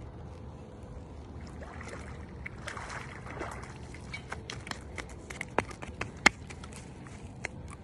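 A hooked catfish splashing in the shallow water at the bank as it is reeled in and dragged ashore, followed by a run of sharp, irregular clicks and knocks, two of them loud just past the middle.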